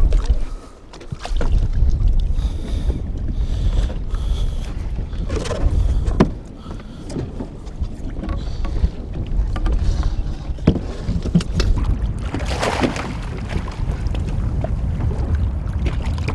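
Low rumble of wind and water against a small fishing boat's hull, with a few sharp knocks of gear on the boat and a louder rush of noise about three-quarters through.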